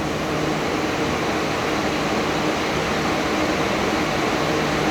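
Electric fans or blowers running steadily with a low motor hum, a constant whir loud enough to keep someone awake all night.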